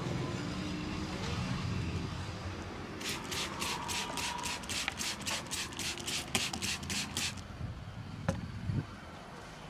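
Hands rubbing briskly over a customer's hair and scalp during a head massage: about fifteen even strokes, roughly three a second, lasting about four seconds. Low traffic rumble sits underneath, and two short clicks come near the end.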